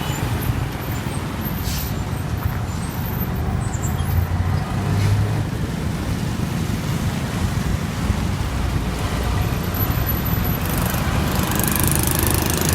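Street traffic with heavy trucks: engines running with a steady low rumble.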